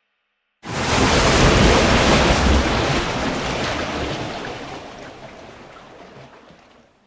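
Sound effect of a water splash and rushing surge, starting suddenly about half a second in and slowly fading away over the next six seconds.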